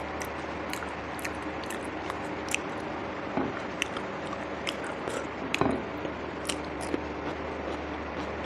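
A person chewing food with irregular wet mouth clicks and smacks, a few louder ones about three and a half and five and a half seconds in, over a steady low background hum.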